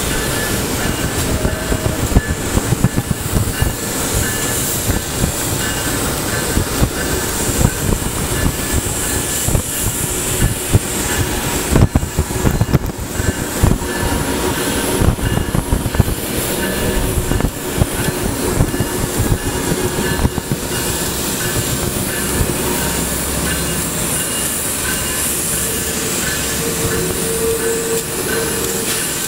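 Retired Budd R32 subway cars rolling slowly past at close range on street track, with steel wheels rumbling on the rails and a thin wheel squeal. Irregular clanks and knocks run through the first twenty seconds or so, then the rolling steadies.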